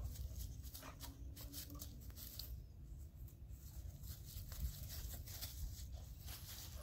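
Scattered crunches and rustles of dry fallen leaves and twigs under a boxer dog's paws as it moves and scuffles about, over a low rumble.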